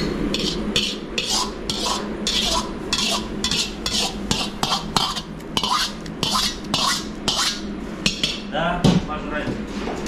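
Noodles being eaten noisily from a big shared basin: a quick run of short hissing slurps, about two a second, with a brief vocal sound near the end.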